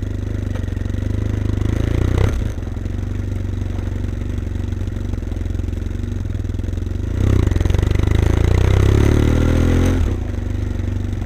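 BMW F800ST's parallel-twin engine running at low speed through a Blue Flame twin-port exhaust with both baffles in. Its note rises briefly and drops back about two seconds in. It then opens up louder with a rising pitch for about three seconds before easing off again.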